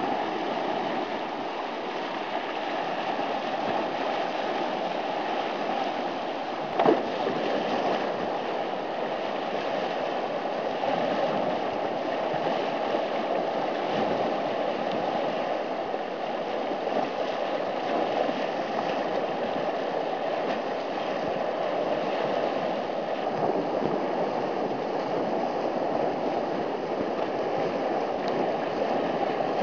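Whitewater rushing steadily through a creek play hole, with one brief sharp knock about seven seconds in.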